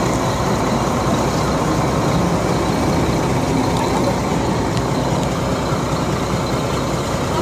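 A boat's engine idling steadily.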